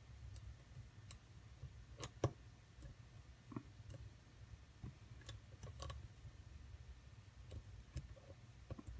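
Faint, irregular small clicks of a lock pick working the pin stack of a custom-built ABUS padlock under tension, over a low steady hum.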